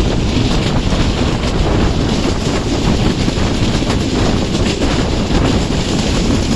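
Wind rushing over the microphone with the steady running rumble of a moving passenger train.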